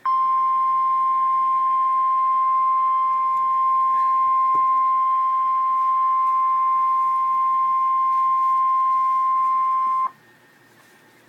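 Emergency Alert System attention tone: one steady high beep held for about ten seconds, cutting off sharply near the end. It signals that a severe thunderstorm warning follows.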